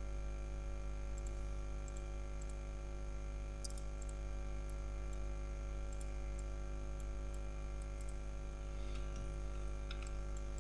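Steady electrical mains hum, with faint computer mouse clicks scattered through it.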